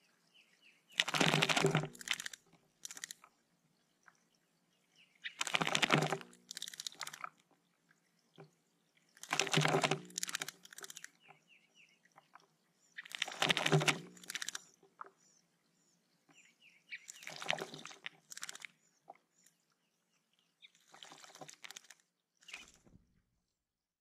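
Eastern bluebird bathing in shallow water: repeated bouts of wing-fluttering splashes about every four seconds, each lasting a second or two.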